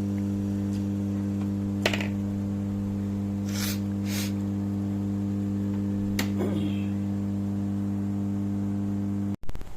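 Steady electrical mains hum on the workbench, with a faint click about two seconds in, two short hisses around the fourth second and another light click a little after six seconds. The hum cuts off abruptly near the end.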